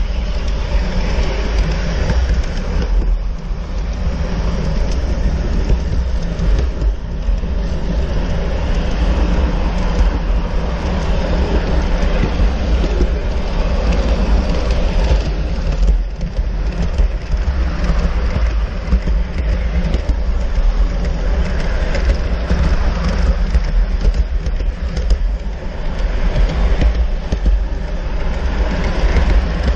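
G-scale model train running along its track, heard from a camera riding on the train: a steady rolling rumble of wheels on the rails.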